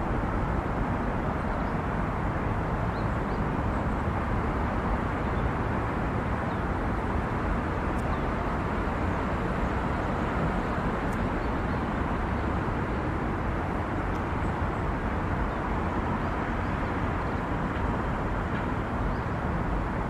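Steady low rumble of distant road traffic, with no clear birdsong.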